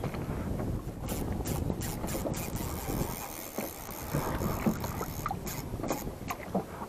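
Wind buffeting the microphone and water slapping against a small boat's hull, with scattered light clicks from a spinning reel and rod being worked against a snagged fish.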